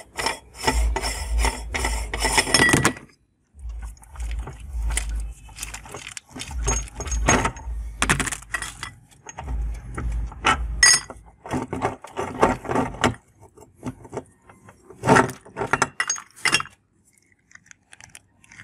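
Hand-cranked metal meat grinder being taken apart: the ring nut unscrewed, the cutting plate and auger pulled out and set down on a plastic tray, giving many metal clinks, scrapes and knocks.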